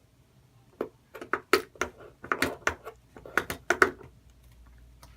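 A quick run of sharp clicks and taps, starting about a second in and stopping about four seconds in, as activator is pushed out of the homemade slime machine's dispenser.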